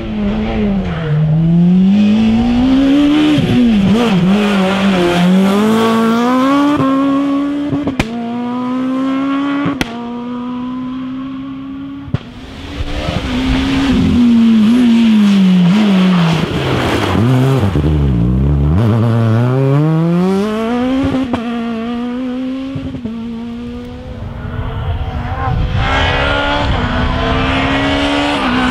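Rally cars driven flat out on a special stage, one after another. Their engines rev up through the gears and drop back on braking, the pitch rising and falling many times.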